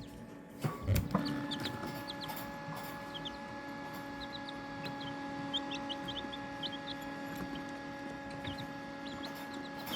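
Young chicks peeping in short, scattered high cheeps over a steady hum, with a couple of knocks about a second in.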